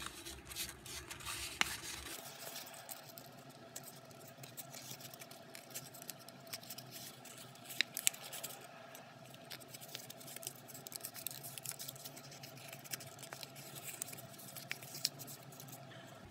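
Stiff archival drawing paper rustling and crinkling as fingers fold and press it into Miura-ori pleats. There are scattered sharp crackles, busiest in the first couple of seconds, with louder snaps about a second and a half in and around eight seconds in.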